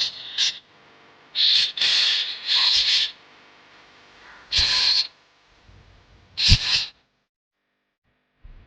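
Six short hissing bursts of spray, each under a second, with a longer pause in the middle before the last two; it goes almost quiet near the end.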